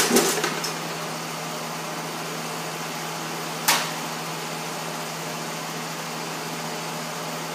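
Steady ventilation hum throughout. A few sharp knocks at the start as a wooden rolling pin is set down on a wooden work table, and one more single knock a few seconds later.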